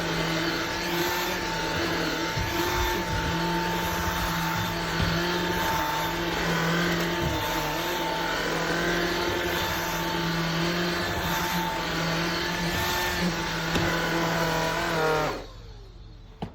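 Vacuum cleaner motor running steadily with a whine, then switched off about fifteen seconds in, its pitch falling as it winds down, followed by a small click.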